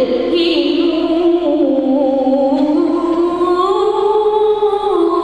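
A boy singing solo and unaccompanied into a microphone, in long held notes ornamented with wavering slides between pitches.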